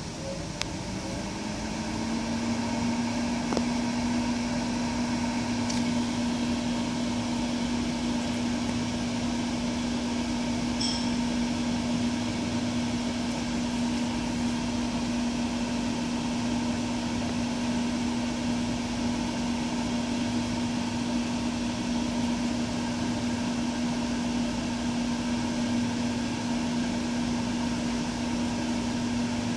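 Husky Altanium Delta 2 hot runner controller mainframe powering up: its cooling fan spins up, the hum rising slightly in pitch over the first two seconds, then runs steadily. A short high beep about 11 seconds in.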